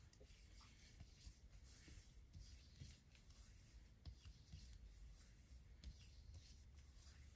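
Near silence, with faint soft rubbing of fingertips over the skin of the neck.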